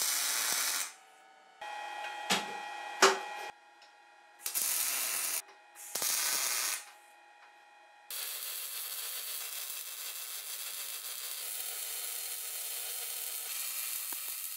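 MIG welding on sheet steel: short bursts of crackling hiss from tack welds, with two sharp metal knocks around two and three seconds in, then a continuous weld bead from about eight seconds in.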